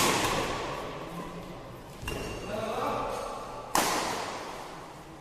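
Badminton racket strikes on the shuttlecock during a fast doubles rally: sharp cracks that echo and fade in the hall. There is a loud hit at the start, a lighter one about two seconds in and another loud hit a little before the end.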